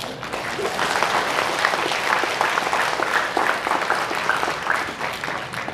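Audience applauding, the clapping breaking out suddenly and dying away near the end.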